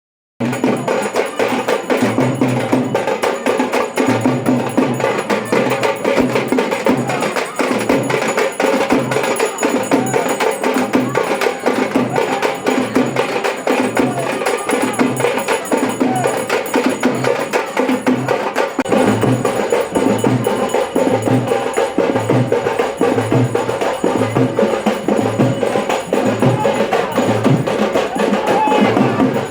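Music with a steady drum beat and dense percussion that starts abruptly under a second in.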